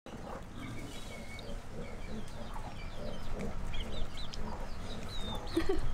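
Chickens clucking, with small birds chirping throughout and two louder low clucks near the end.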